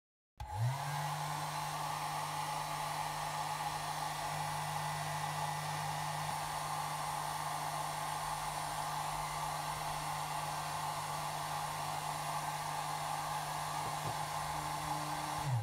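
Handheld hair dryer switched on about half a second in, its motor spinning up and then running steadily with an even rush of air, blowing on a vinyl phone skin; it is switched off right at the end and the motor winds down.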